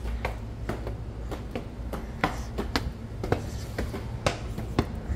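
Footsteps climbing hard concrete stairs and then walking onto a tiled floor: sharp steps, about three a second, over a low steady hum.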